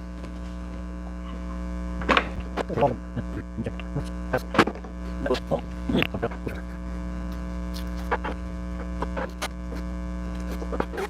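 Steady electrical hum, with scattered sharp clicks and knocks of things being handled.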